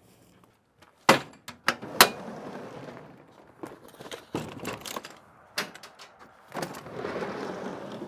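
Sharp clunks and rattles of a loaded tool bag being set into a van's pull-out aluminium drawer, then a longer sliding rush near the end as the drawer is pushed shut.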